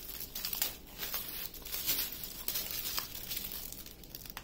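Small clear plastic bags of diamond painting drills crinkling irregularly as they are picked up, handled and laid down in a row on a table.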